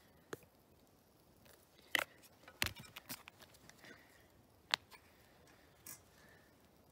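A handful of scattered, sharp small clicks and taps, about six spread over several seconds, with faint background between them.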